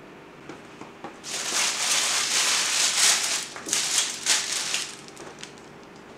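A sheet of paper being handled, rustling and crinkling for about three and a half seconds starting about a second in, with a few lighter crackles after. An electric fan's steady hum runs underneath.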